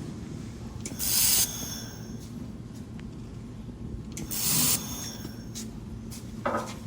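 Handheld fibre-laser welder firing spot welds on metal: two half-second hissing bursts, then a shorter, duller one near the end, over a steady machine hum.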